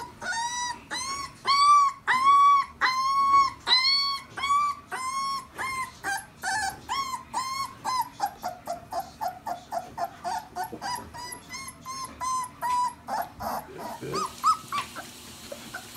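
A young puppy whining: a run of high cries, each rising and falling, about two a second at first. Then come quicker, shorter cries that fade out shortly before the end.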